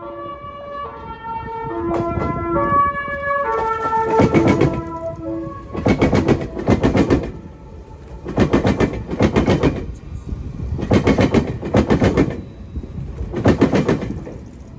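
Meitetsu 2000 series μSKY train's music horn playing a short stepped melody. Just before the melody ends, the wheels start clanking loudly over a diamond crossing, in pairs of clanks about every two and a half seconds as the cars roll slowly across.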